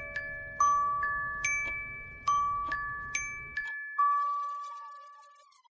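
Background music: a slow melody of single bell-like mallet notes, each struck note ringing on. The last note comes about four seconds in and rings out, fading away.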